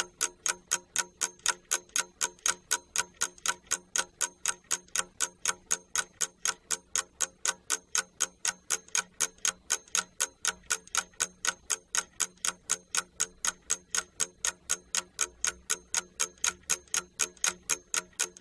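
Clock-ticking sound effect, an even run of about four ticks a second, used as a countdown while time is given for a classroom exercise.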